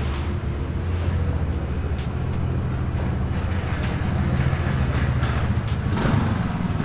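TVS Ntorq scooter's single-cylinder engine running steadily while the scooter is ridden, a low drone with road and wind noise, growing slightly louder in the second half.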